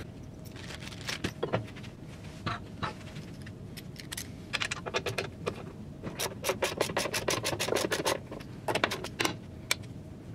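Steel hand tools and metal parts clinking and scraping on a web guide's steel frame. A little past the middle comes a fast run of even clicks from a ratchet wrench turning a fastener.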